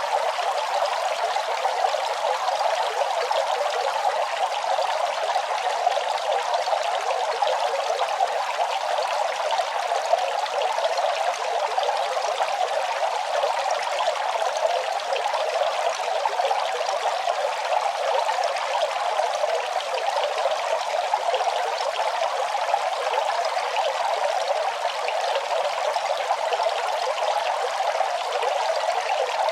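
Running water, a steady, unbroken rush with no deep rumble and no change in level.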